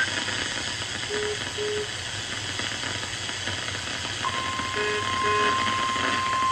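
Steady static hiss of a weather radio receiver, with two pairs of faint short low beeps. About four seconds in, the steady NOAA Weather Radio 1050 Hz warning alarm tone starts, signalling that a warning message is about to be read.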